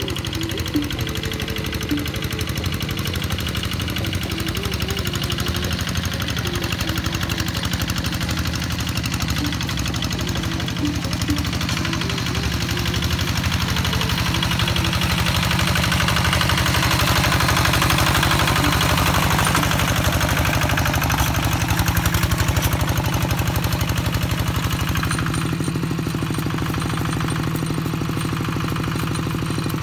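Kubota diesel engine of a hand tractor ploughing a wet rice paddy, running steadily with a rapid knocking beat. It grows louder past the middle as the tractor comes close.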